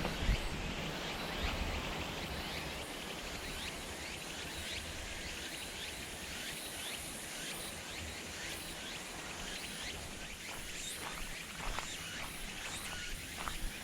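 Outdoor ambience in woodland: a steady background hiss with many faint, short high chirps from insects or birds, and a few soft rustles near the end.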